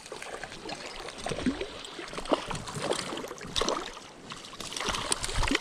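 River water running with irregular splashing and gurgling as a hooked brown trout is fought near the surface.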